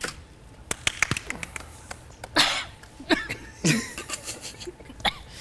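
A person coughing several times in short bursts. Scattered sharp clicks come about a second in.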